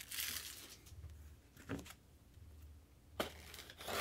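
Trading cards being handled and gathered up on a table: a few short rustles and slides, the first at the start, then about two seconds apart and twice near the end.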